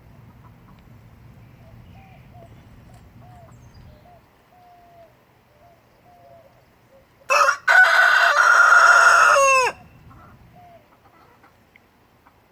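Rooster crowing once, loud: a short opening note, a brief break, then a long held call that falls away at the end. Before the crow, hens give a string of soft, low clucks, roughly one every half second or so.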